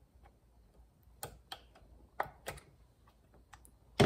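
Small metal clicks and ticks of pliers working an E-clip onto the shaft over a Stihl chainsaw's sprocket and washer, about half a dozen spaced-out clicks, with a louder knock right at the end.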